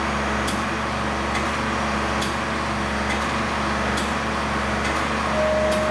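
Intensifier pump running through a volumetric test: a steady mechanical hum with a sharp click at an even beat, about once every second.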